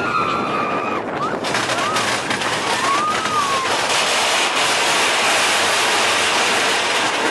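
Mine-train roller coaster running along its track: continuous loud rattling and clattering of the cars and wheels, with the rush of air past the train. A few short, high rising-and-falling whines sound in the first few seconds, and the rattle grows louder and hissier about four seconds in.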